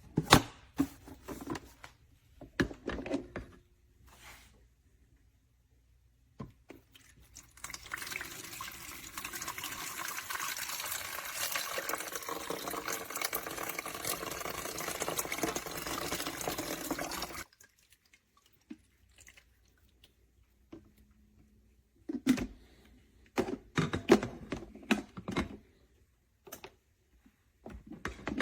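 Water running steadily from a tap for about ten seconds, then shut off abruptly. Scattered clicks and knocks of things being handled come before and after it.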